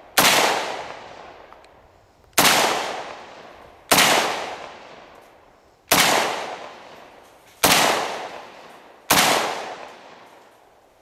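Rock River Arms LAR-47 X-1 rifle in 7.62x39 firing six deliberate single shots, one every one and a half to two seconds, each shot trailing off slowly as it echoes.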